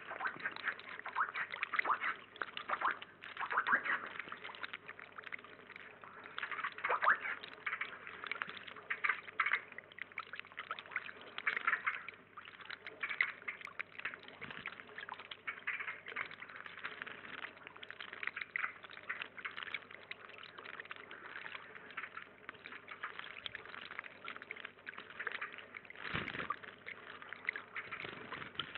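Shallow pond water splashing in irregular bursts as common blue tits bathe, flicking water with their wings, over a small steady trickle of inflowing water.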